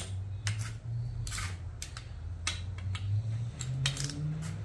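Ratchet of a click-type torque wrench clicking as it is swung back and forth, tightening cylinder head bolts towards 39 Nm. The clicks and short clacks come at an irregular pace over a steady low hum.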